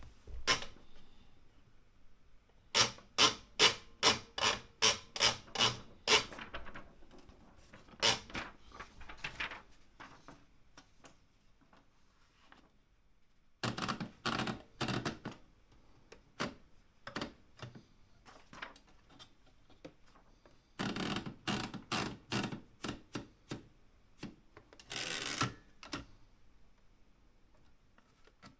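Typewriter keys struck in runs of sharp clacks, about three a second, broken by pauses, with a few denser, busier stretches of strokes.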